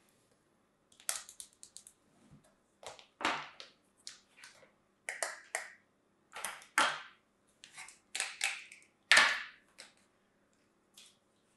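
Kinetic sand crunching and scraping as hands press plastic sand molds into it and lift them out of a plastic tray: a run of short, irregular crunches, the loudest about nine seconds in.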